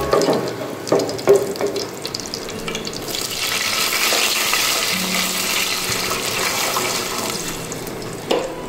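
Cumin seeds frying in hot oil in a pot, with a wooden spatula stirring and knocking against the pot a few times. About three seconds in, water poured into the hot oil sets off a loud hissing sizzle that fades slowly, and a single knock comes near the end.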